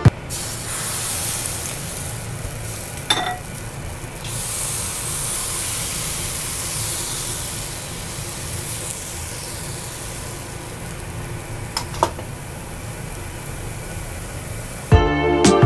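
Rice-flour and coconut-milk hopper batter sizzling in a hot hopper pan: a steady hiss, with a light knock about three seconds in and another near twelve seconds. The sizzle as the batter hits the pan is the sign that the pan is hot enough.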